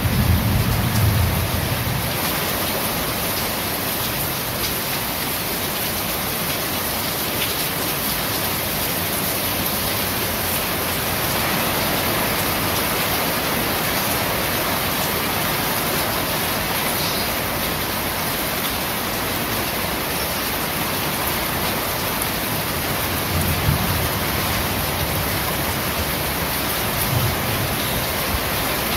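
Steady rain falling on corrugated roofing, an even hiss. A low thunder rumble dies away in the first two seconds, and two short low rumbles come near the end.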